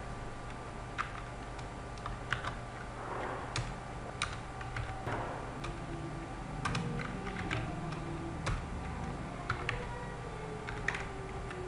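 Typing on a computer keyboard: irregular keystrokes with a few louder clicks, over a steady low hum.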